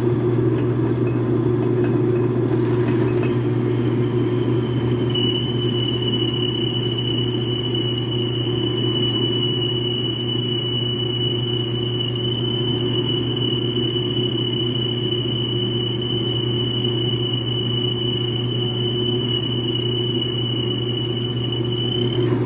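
Metal lathe running with its motor humming steadily while a 3/4-inch drill bit is fed into the spinning workpiece. From about five seconds in, a steady high-pitched squeal from the drill cutting holds until just before the end, a sign of a worn, dull drill bit.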